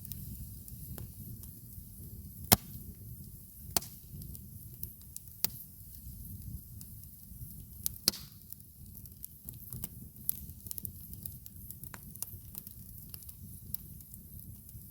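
Wood campfire crackling, with irregular sharp pops, the loudest about two and a half seconds in, over a steady low rumble.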